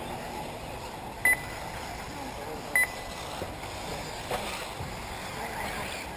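Two short, high electronic beeps about a second and a half apart, over a steady background hiss.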